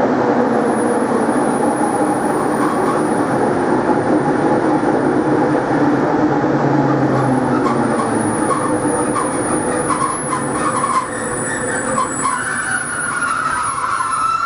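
NS Plan V (Mat'64) electric multiple unit running with a steady rumble of motors and wheels on rail, slowing down. From about halfway there are short squeaks, and near the end a wavering squeal of wheels and brakes as it comes in to stop.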